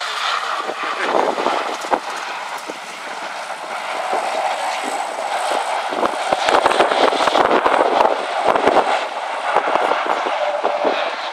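Engine of a German WWII four-wheeled light armoured car running as it drives across a rough ploughed field, with a rattling, crackling noise. It gets louder about halfway through as it passes close by, then eases off as it moves away.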